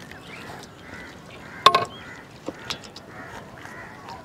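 A metal ladle or spoon clanks sharply against a steel pot once, followed by a couple of lighter clinks, as curry is scooped out. Short bird calls repeat in the background.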